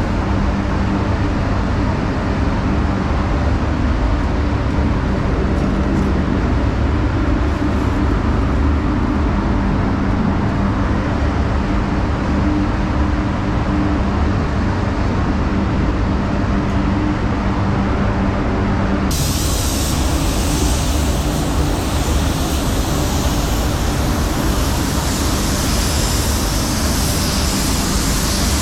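Steady rushing airflow of a paint spray booth with the hiss of a compressed-air spray gun laying a coat of pearl, over a low hum. About nineteen seconds in the sound turns suddenly brighter and hissier.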